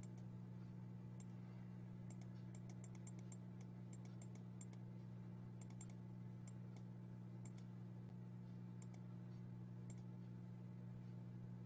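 Faint, steady low hum with scattered light clicks, bunched most densely from about two to five seconds in.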